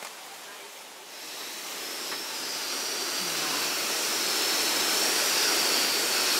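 Gas canister camp stove burner hissing under an aluminium mess tin of rice; the hiss starts about a second in, grows louder over the next few seconds, then holds steady.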